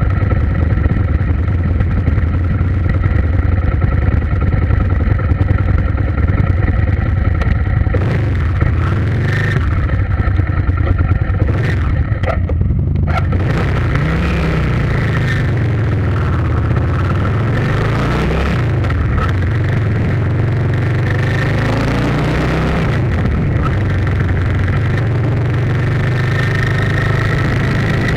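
Motorcycle engine running under way with a steady low drone. From about halfway through, its pitch rises and falls several times as the throttle is opened and closed.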